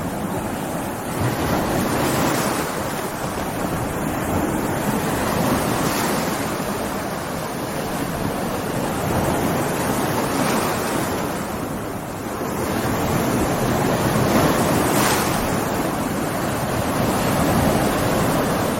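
Stormy sea: heavy surf and waves breaking continuously, with wind, the roar swelling and easing every few seconds.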